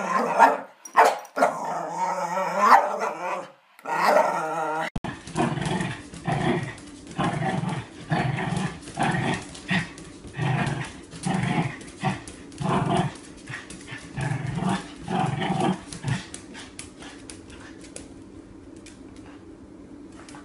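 A dog vocalising in a speech-like way with wavering, pitched moans. After a cut about five seconds in, a dog gives a run of short grumbling yowls about once a second, which die away near the end.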